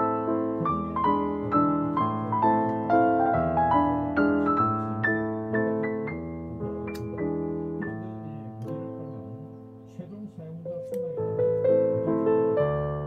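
Background piano music: a gentle melody of struck notes that grows quieter toward the middle and swells again near the end.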